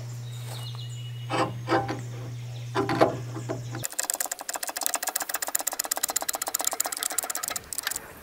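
Porta Power hydraulic hand pump being worked by its handle to push a ram against a bent steel brush-cutter skirt, with a few knocks and creaks over a steady hum. About four seconds in the hum stops suddenly and a fast, even clicking buzz takes over.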